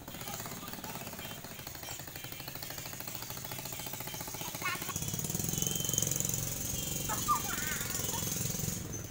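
A small engine running with a rapid, even chugging knock, growing louder about five seconds in. Brief children's voices come through near the middle and end.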